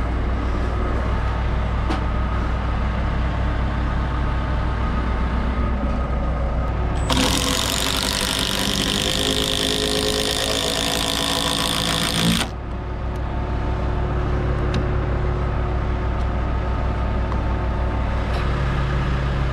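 An engine idles steadily, from the work lift the carpenter stands on. From about seven seconds in, a Makita cordless impact driver hammers a long structural screw into the fascia board for about five seconds, then stops suddenly.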